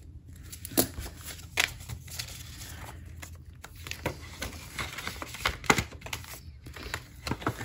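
Paper bills and cash envelopes being handled: rustling and crinkling, with a handful of sharp clicks and snaps scattered through.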